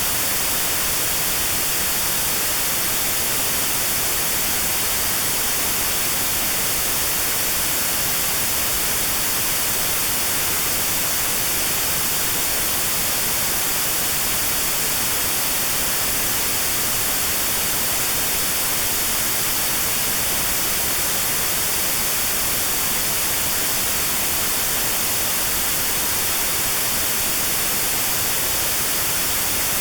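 Steady white noise hiss with a narrow band around 4 kHz notched out, a notched sound therapy signal for tinnitus at that pitch.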